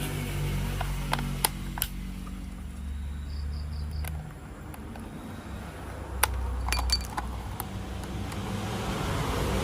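Small electric motor of a battery-powered toy train humming steadily, louder for a second or so around the middle and again later, with scattered sharp plastic clicks and taps.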